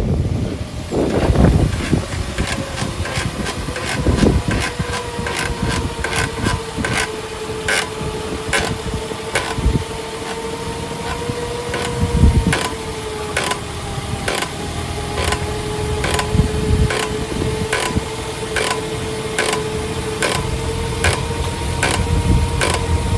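Toyota Avanza brake disc being resurfaced on a brake lathe: a steady motor whine with the cutting tool ticking a little under twice a second, with a few heavier knocks. The ticking comes from the tool catching only the high side of the disc, which wobbles badly and still has patches the cutter has not reached.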